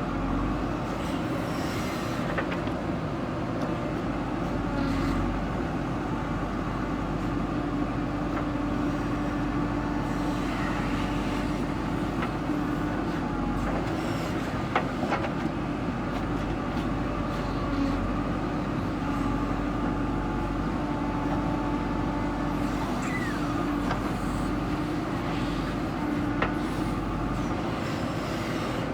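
JCB 3DX backhoe loader's diesel engine running steadily under work, with a few sharp metallic clanks about halfway through.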